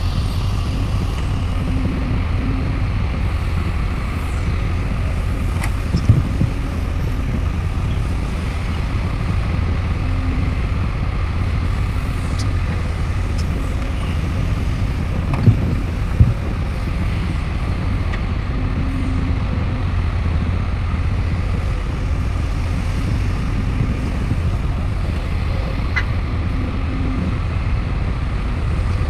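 Heavy diesel engine of a Sumitomo SH350 excavator running steadily at work, a deep, continuous rumble. There are a few sharp knocks: one about six seconds in, and two close together around the middle.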